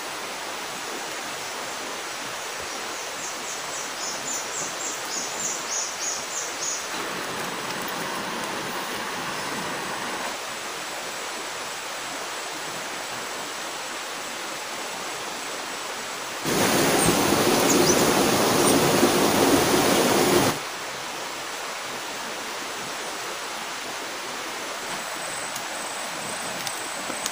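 Steady outdoor rushing noise, with a run of quick high chirps a few seconds in. Past the middle, a much louder rushing surge lasts about four seconds and starts and stops abruptly.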